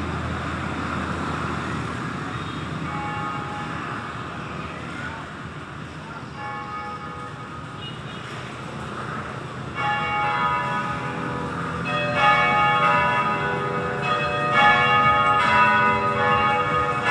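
A set of three church bells ringing for Sunday evening Mass, faint at first over background noise, then sounding out clearly from about ten seconds in with louder, overlapping strokes that ring on.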